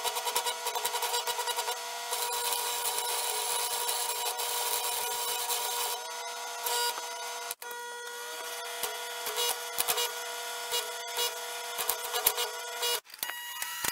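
Stick welding with a Sears Craftsman 100-amp AC arc welder: the electrode arc crackles and sizzles over a steady hum. It stops for a moment about seven and a half seconds in and again near the end.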